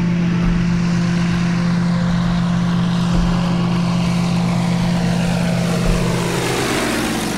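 Blériot XI replica's propeller engine running steadily as the monoplane flies low toward and over the microphone, its pitch dropping near the end as it goes past.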